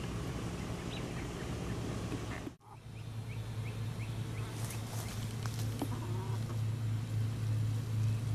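New Hampshire Red hens clucking softly as they forage, over a steady low hum. A quick run of about six short high chirps comes a few seconds in, and the sound drops out briefly about two and a half seconds in.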